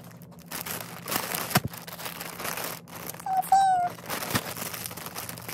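Clear plastic packaging crinkling and rustling as dog clothes are handled and unwrapped. About three and a half seconds in there is one short high-pitched tone.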